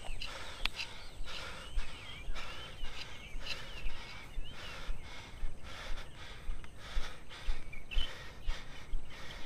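A person panting hard from the climb, about two loud breaths a second in a steady rhythm, with footsteps on grass and gravel underneath.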